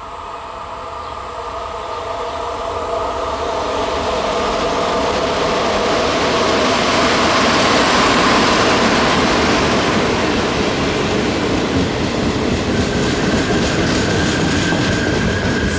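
Trenitalia E.464 electric locomotive hauling a passenger train past a station platform: the rolling noise grows over the first eight seconds as the locomotive approaches and passes, then the carriages run by with a steady rumble and clatter. A thin, high, steady whine comes in near the end.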